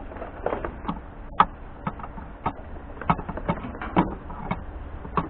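A series of irregular sharp clicks and knocks, about a dozen over a few seconds, over a low steady rumble.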